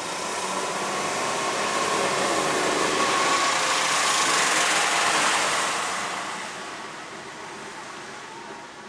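Tyres hissing on a wet road as a vehicle passes, swelling to a peak about four to five seconds in and then fading.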